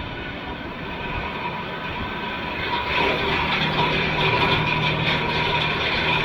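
Tractor running while pulling a tillage implement through the soil, a steady mechanical drone with rattling from the rig, getting louder about three seconds in.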